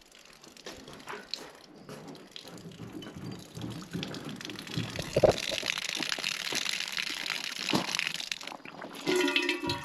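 Water and trapped air sputtering and hissing out of an opened valve on the well line, growing stronger over the first few seconds as the air is bled out of the line, with a couple of sharp knocks along the way.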